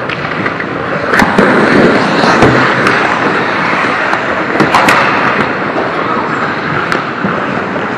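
Ice hockey play close to the goal: skates scraping and carving on the ice, broken by sharp clacks of sticks and puck, a few about a second in and more near five and seven seconds. The scraping is loudest in the first few seconds.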